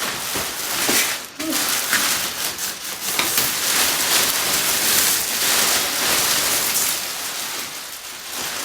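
Packaging rustling and crinkling steadily, with small clicks, as the parts of a heated clothes airer are unpacked by hand.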